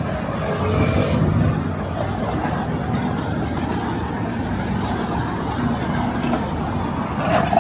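Steady low rumble of busy street ambience, with indistinct voices of passers-by about a second in and again near the end.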